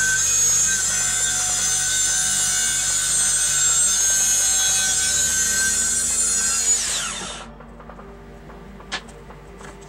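Corded circular saw running and cutting through the plywood base of a crosscut jig. The motor is switched off about two-thirds of the way through and the blade spins down with a falling whine, followed by a single light knock near the end.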